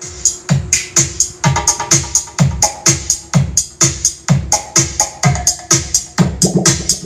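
Electronic dance music with a heavy kick drum at about two beats a second, played from a USB stick through a Joson Saturn amplifier and a pair of speaker boxes during a sound check. It starts abruptly.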